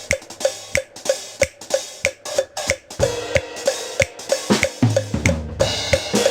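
Drum kit playing an instrumental break, hi-hat, snare and bass drum keeping a steady beat, with a low bass line coming in about halfway through.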